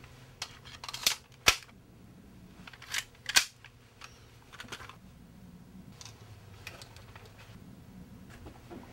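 Pistols and a magazine being picked up and loaded by hand: a run of sharp metallic clicks and clacks, four loud ones within the first three and a half seconds, then a few fainter handling clicks.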